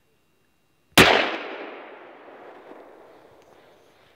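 A single shot from a Ruger SP101 .357 Magnum revolver firing a full metal jacket round about a second in, followed by a long echo that fades over about three seconds.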